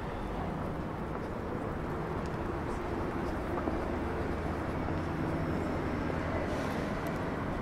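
Street ambience: a motor vehicle's engine hums steadily nearby over the general noise of traffic.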